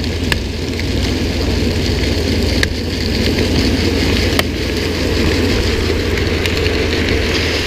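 Steady running noise of a car moving along a wet road: engine and tyre hiss with a low wind rumble on the microphone, and a few faint clicks.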